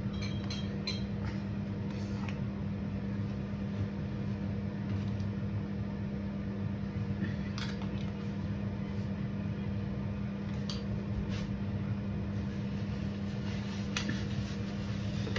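Steady mechanical hum from a running fan-type appliance, with a few faint clicks and scrapes of a metal spoon against a plastic tub as mayonnaise is spooned out.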